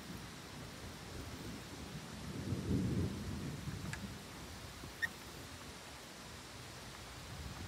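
Thunder rumbling low, swelling to its loudest about three seconds in and dying away, over a steady hiss of rain just beginning. A single sharp tick about five seconds in.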